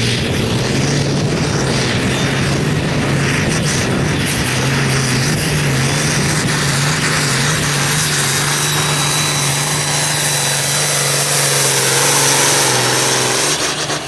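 Diesel pulling tractor running flat out under full load as it drags a weight-transfer sled, a loud steady drone held at one pitch. Near the end the engine lets off and the sound falls away.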